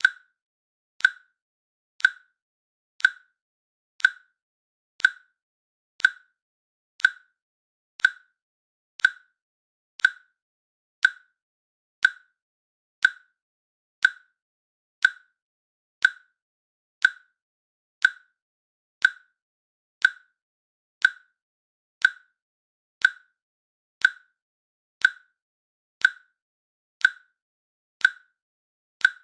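Countdown timer clicking once a second: a short, sharp, slightly high-pitched click each second, evenly spaced, marking each second of the countdown.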